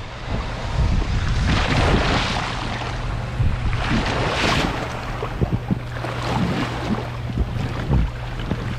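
Water rushing and splashing around a rider sliding back and forth across a halfpipe water slide, with wind buffeting the microphone. The rush swells about a second and a half in and again about four seconds in, and a few light knocks come later.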